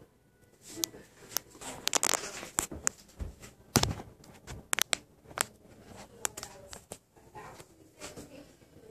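Handling noise: irregular clicks, knocks and rustles as a phone is moved about and brushes against a bathtub, with one heavier thump a little before the middle.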